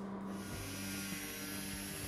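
Angle grinder with a thin cut-off disc cutting through a rusty steel strip: a steady high-pitched hiss and whine that starts about a third of a second in, over a low steady hum.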